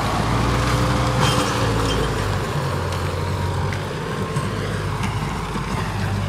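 Sonalika Tiger 65 HP tractor's diesel engine running steadily under load while it drives a 10-foot Shaktiman rotavator through the soil, the tractor labouring slightly under the implement. The low hum weakens a little about two and a half seconds in.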